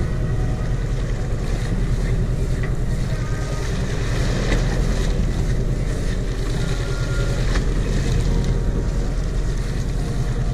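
Party boat's engine running with a steady low hum, wind buffeting the microphone and sea water washing along the hull.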